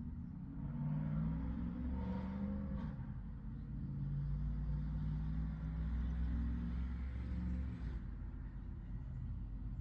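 A motor vehicle's engine running, swelling about a second in and dropping away after about eight seconds, with low rumble and shifting engine tones.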